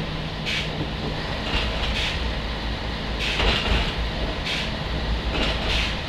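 Running sound of a Portuguese Railways NOHAB 100 series diesel railcar under way: a steady low engine drone and wheel-on-rail rumble, with short rattling bursts about once a second.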